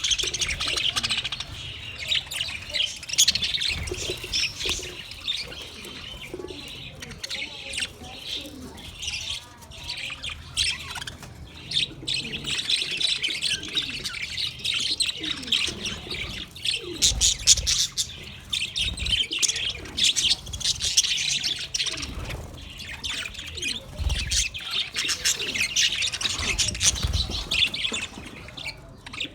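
Many small birds chirping and twittering continuously, overlapping calls at high pitch.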